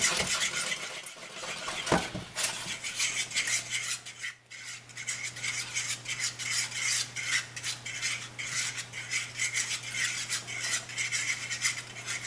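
A fork stirring beaten eggs in a hot nonstick pan in quick figure eights, its tines scraping and clicking rapidly and continuously against the pan bottom as the eggs set into small curds.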